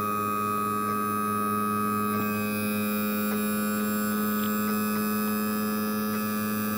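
Mercury inline-six outboard's newly replaced electric power trim/tilt motor and pump running at a steady pitch as it tilts the outboard up.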